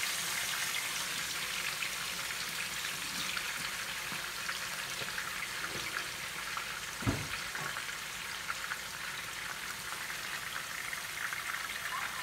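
Chicken thighs frying skin side down in hot oil in an electric skillet: a steady sizzle with fine crackling, and a single knock about seven seconds in.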